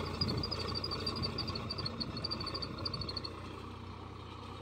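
Diesel tractor engine running steadily while pulling a rotavator through the field's soil, growing fainter as the tractor moves away. A bird chirps rapidly and high in the background until about three seconds in.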